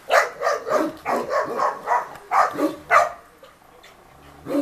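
Dog barking in a rapid run of about ten barks over three seconds, then a short pause and one more bark near the end.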